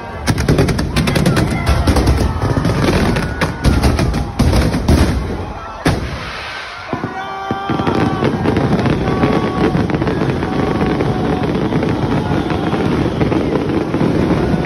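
A rapid barrage of firecrackers, cracks coming thick and fast for about five seconds, with one more single bang a little later. After that, a dense, loud crowd din with shouting.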